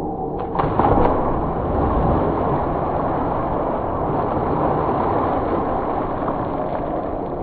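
A steady, rumbling noise like a blast or heavy engine, with a few sharp bangs about a second in.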